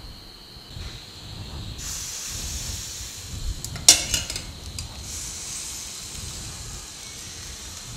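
Appam batter hissing in a hot appachatti (small two-handled non-stick pan) over a gas burner, a steady sizzle that starts a couple of seconds in. A sharp knock about four seconds in as the pan is handled to swirl the batter.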